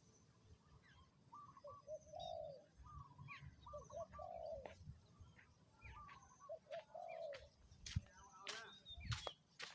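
Spotted dove cooing: three phrases, each of short notes followed by a longer, lower coo. There are faint chirps from other small birds, and a few sharp clicks near the end.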